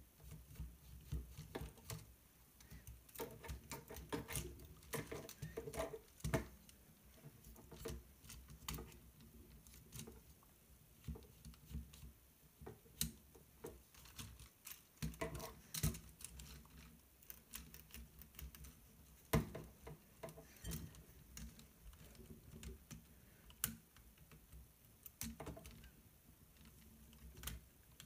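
Light, irregular clicks and rattles of Lego Technic plastic parts as a model mountain bike is handled by hand, its suspension pressed down and its seat post adjusted.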